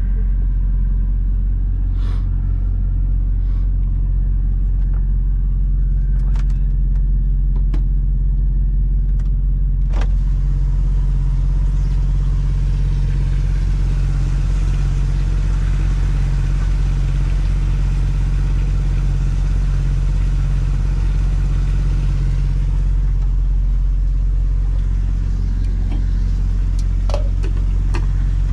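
Volvo VNL semi-truck's diesel engine idling steadily, a constant low drone heard from inside the cab, with a few sharp clicks and knocks of handling. From about ten seconds in a hiss joins the drone for roughly twelve seconds.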